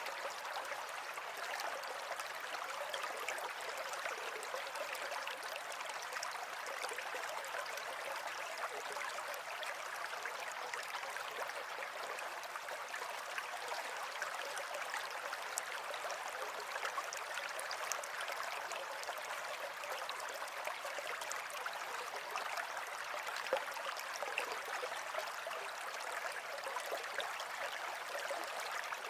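Flowing water running steadily, with many small splashes and trickles throughout.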